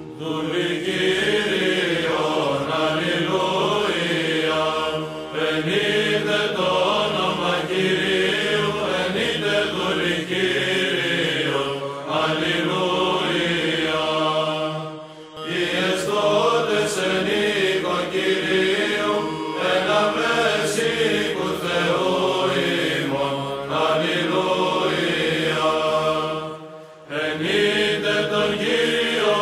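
Orthodox church chant: a sung melody moving in long phrases over a steady held low note, with brief breaks about halfway through and again near the end.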